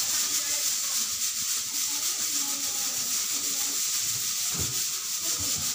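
Cloth being rubbed back and forth over a wall ventilation grille: a steady scratchy hiss of wiping, with a dull low knock about four and a half seconds in.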